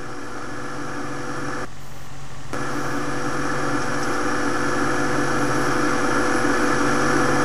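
A steady humming drone of several held tones. It cuts out briefly about two seconds in, then comes back and grows slowly louder.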